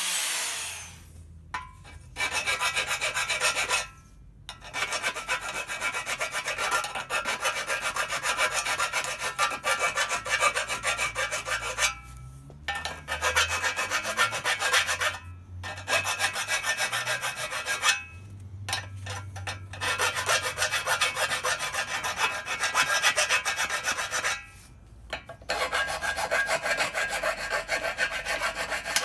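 Hand file rasping over the cut ends of a motorcycle frame's square steel tubes, cleaning up the edges left by cutting off the old subframe: long runs of quick strokes broken by short pauses. An angle grinder winds down just as it begins.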